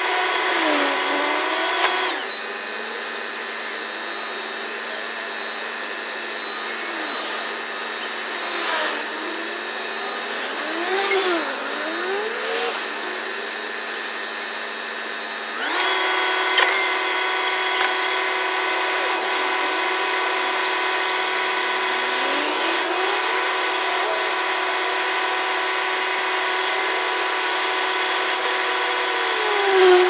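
Truck-mounted 42-metre concrete pump's engine and boom hydraulics running while the boom sections move, played back fast-forwarded: a high whine of steady tones with pitches gliding up and down. The sound changes character about two seconds in and again about halfway through.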